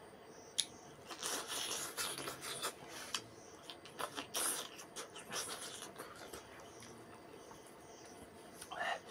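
A person eating rice and fried fish by hand from a banana leaf: chewing and wet mouth clicks, with fingers rubbing and scraping through the food on the leaf. Busiest from about a second in to about five seconds in.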